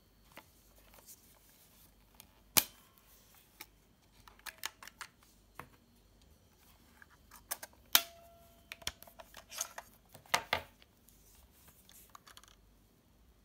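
Plastic clicks and snaps of an Olympus Trip AF 50 compact film camera being handled, as its hinged film back and battery compartment door are opened. A sharp single snap comes about two and a half seconds in, with scattered clicks after it and a busier run of clicks near the end.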